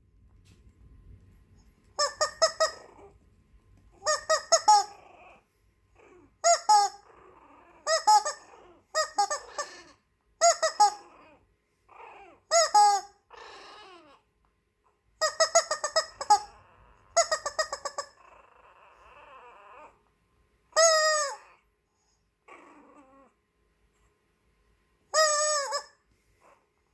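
A squeaky toy squeezed over and over in short runs of loud, high-pitched squeaks, about eleven bursts in all. Fainter growling from a toy poodle puppy comes between the squeaks.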